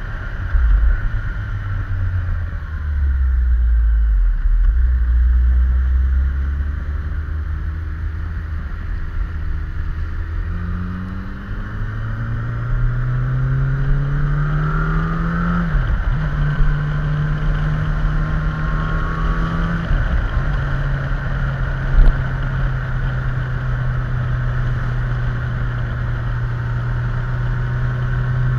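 Yamaha FZ8N's 779 cc inline-four engine heard from a camera mounted on the fuel tank: its note falls low as the bike slows in the first few seconds, then rises through the gears with two quick gear-change dips past the middle, and settles into a steady cruise. Wind and wet-road tyre noise run underneath.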